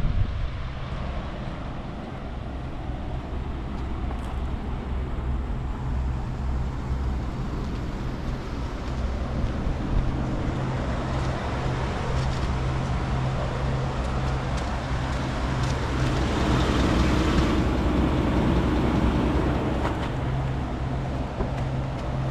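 An engine idling steadily, a low even hum, with a rushing noise that swells for a few seconds near the end.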